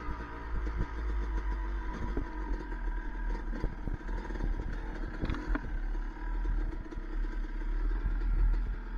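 Dirt bike engine running as the bike rides over a rough dirt trail, with clatter and a few sharp knocks from bumps.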